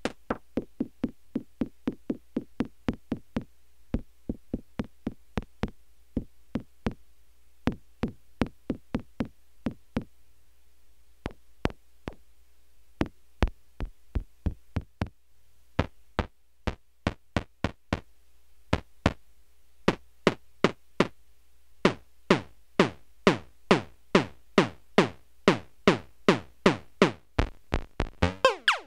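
Behringer 2600 analog synthesizer playing a rapid train of short percussive drum-like hits, about three to four a second. Each hit is a low oscillator note whose pitch is swept by a quick envelope driving frequency modulation, which gives a kick or tom sound. The hits grow louder in the last third as the sliders are adjusted.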